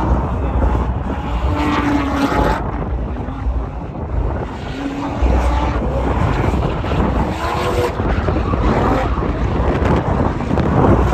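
Strong wind buffeting the microphone, a heavy, steady low rumble.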